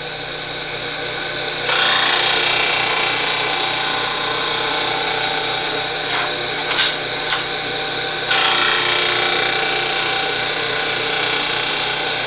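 12-inch disc sander running, with a metal part pressed against the abrasive disc to grind a 45° chamfer. The grinding starts about two seconds in and goes on, with two sharp clicks a little past halfway and a fresh bite of grinding just after.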